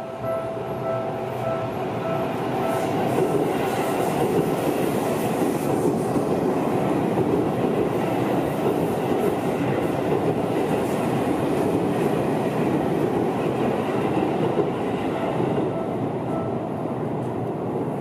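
Japanese level-crossing alarm dinging in a fast, even repeat, then a commuter train on the Seibu Shinjuku Line running past over the crossing for about twelve seconds. The alarm keeps sounding under the train noise and comes through again near the end.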